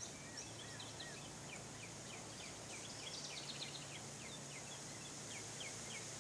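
Birds chirping in a string of short, quick notes, faint against a steady hiss and a low hum.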